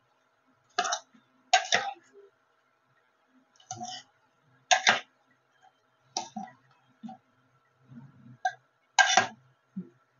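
Steel spoon scraping and knocking against the inside of an aluminium pot, about ten short strokes roughly a second apart, as rice balls are turned through thick sugar syrup.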